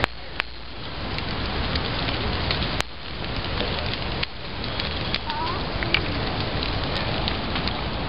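Large bonfire burning into apple-tree branches: a steady rushing noise of flames with sharp pops and crackles scattered through it.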